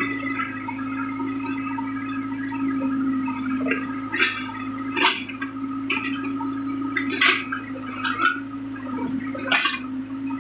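Case 580-series backhoe loader working: the engine runs steadily with a constant hum, and several sharp knocks come in the second half.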